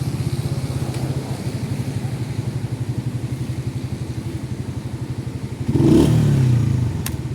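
Motorcycle engine running with a steady, rapid low putter. Near the end comes a louder surge of about a second, followed by a single sharp click.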